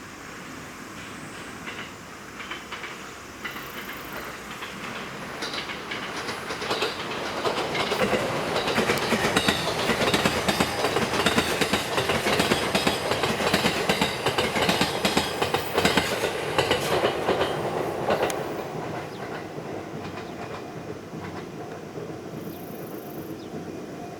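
Six-car E129-series electric train going by, its wheels clacking over the rail joints in quick runs. It builds up, is loudest for about ten seconds in the middle, then fades as it moves off.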